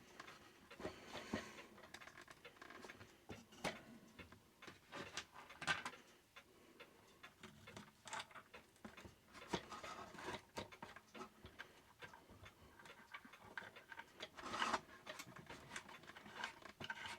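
Faint, irregular small clicks and scrapes of a mounting screw and tool being worked against the metal of a Herschede clock movement while the screw is lined up with its hole.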